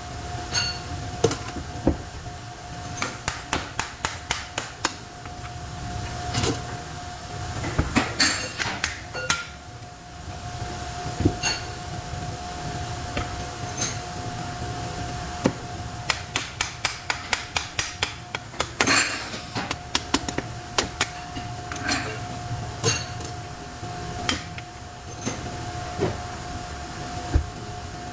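Hammer striking metal while an electric motor is taken apart: quick runs of sharp taps at about five a second, with single blows between them.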